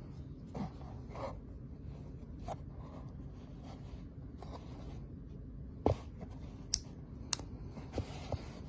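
Hands handling a small plastic action camera: soft rubbing and scraping, then a string of sharp clicks in the second half, about five of them, over a low steady hum.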